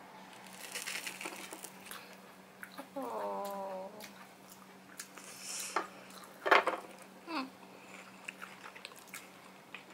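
A person eating a cheese corn dog: light handling and plate noises, a brief hum about three seconds in, then a bite with a sharp click about six and a half seconds in, followed by small mouth and handling sounds.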